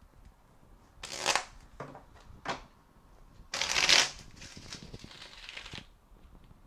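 A deck of tarot cards being shuffled by hand: a few short rustles, then the loudest and longest shuffle about three and a half seconds in, trailing off about two seconds later.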